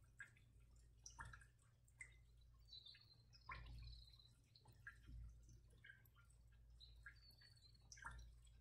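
Near silence: quiet room tone with a steady low hum and faint scattered ticks and clicks, plus a few short high tones.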